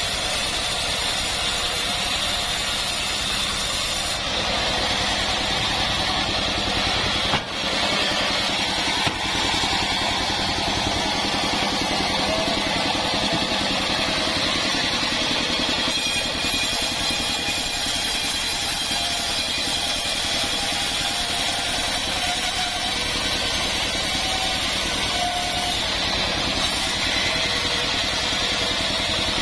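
Engine-driven mobile band sawmill running steadily, its band blade ripping lengthwise through a hard acacia log. There is a brief dip in the sound about seven seconds in.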